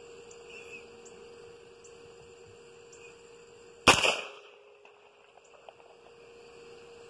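A single shot from an Anderson AR-15 rifle in .223 Remington about four seconds in, sharp and loud, with a short echo tail. A faint steady hum lies under it.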